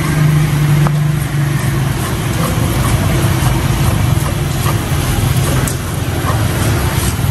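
Steady low engine hum of motor traffic running through, with a stone pestle scraping and grinding green chillies on a flat stone mortar.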